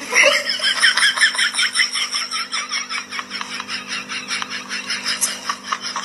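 Continuous high-pitched laughter: a long run of quick giggles, about five or six a second, without a break.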